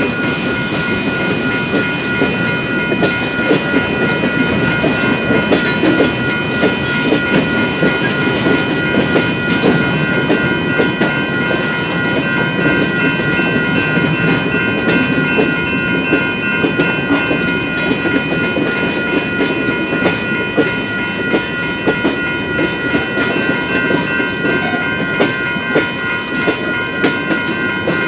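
Freight train rolling through a grade crossing, its wheels clicking steadily over the rail joints. Over it, the crossing's warning bell rings on without a break.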